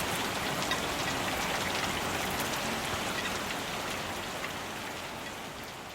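Steady rain falling, with many individual drops ticking through the hiss. It slowly fades out over the last couple of seconds.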